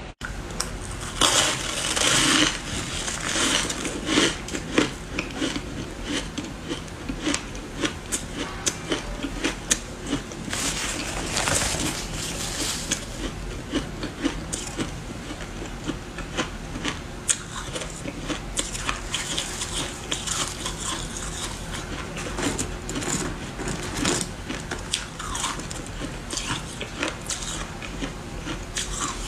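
Ice dusted with matcha powder being bitten and chewed: a dense run of sharp cracks and crunches, with louder stretches of crunching about a second in and again about ten seconds in.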